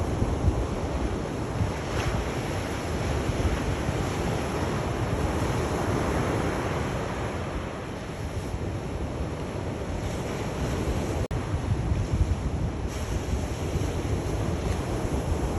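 Sea waves breaking and washing on the shore: a continuous rush of surf, heaviest in the low end, with a brief dropout about eleven seconds in.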